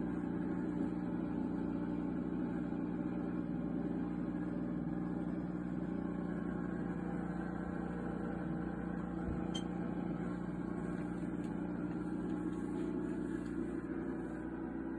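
Steady electric hum of a homemade refrigerator-cabinet egg incubator running, its fan or motor going without change, with a faint click about nine seconds in.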